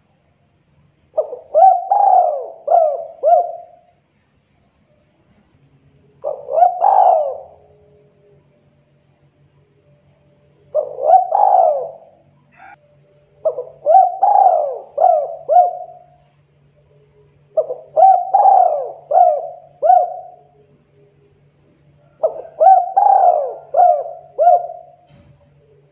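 Spotted dove cooing in six phrases of two to four arched coos each, with pauses of two to three seconds between phrases.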